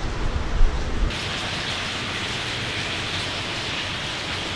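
Steady, even hiss of water running and splashing in a concrete storm drain. For the first second it is masked by a low rumble and a couple of knocks.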